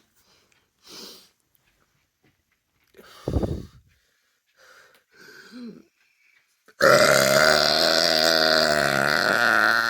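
A woman's long, loud belch after chugging a beer. It begins about seven seconds in and holds steady in pitch past the end, after a short low sound about three seconds in.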